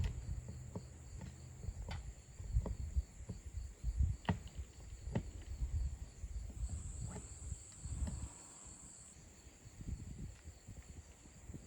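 Irregular knocks, thuds and scrapes of old asphalt shingles being torn off a roof, over a steady high-pitched insect drone that grows louder for a couple of seconds midway.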